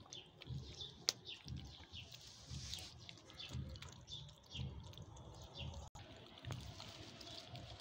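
Kittens and a mother cat eating wet rice-and-meat food from plates: faint, irregular wet chewing and lapping, with one sharp click about a second in.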